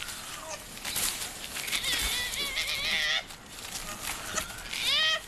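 Two male koalas fighting in a tree, screaming with wavering, squealing cries: a long one in the middle and a sharply rising one near the end, with scratches and knocks in between. The cries belong to a dominance fight between an alpha male and a rival.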